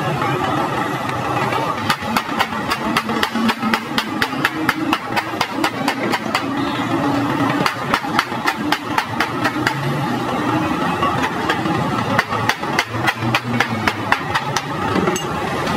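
Small hammer tapping on the brass top tank of a truck radiator in quick, even light strikes, about three a second, starting about two seconds in and stopping near the end. An engine runs steadily underneath.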